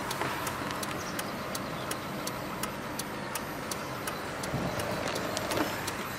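Steady mechanical ticking, about three evenly spaced clicks a second, over a low background hum inside a parked car.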